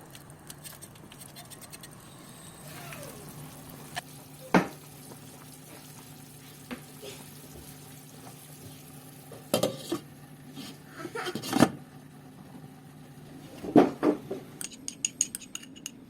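Kitchen utensils and dishes clinking and knocking at irregular moments, in clusters about a third, two thirds and seven eighths of the way through, over a steady low hum.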